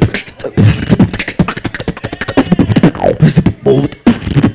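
A person beatboxing: a fast, irregular run of mouth-made low thumps and sharp clicks.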